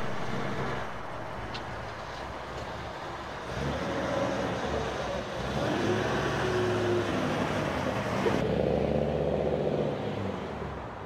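Chevrolet Impala's 383 stroker V8 running at idle, its note growing louder and shifting in pitch about four seconds in. Its exhaust needs a little muffler work, according to the dealer.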